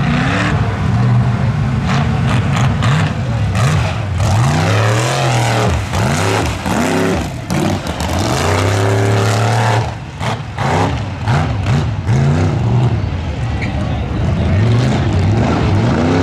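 Lifted mud truck's engine revving hard, its pitch surging up and falling back again and again as it drives through the mud track.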